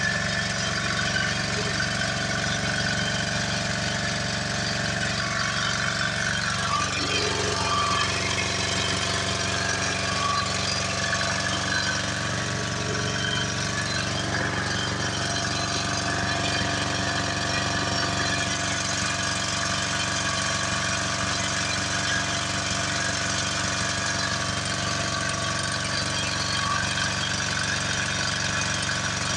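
An engine running steadily at idle, a continuous low hum with no break, its tone changing slightly about seven seconds in.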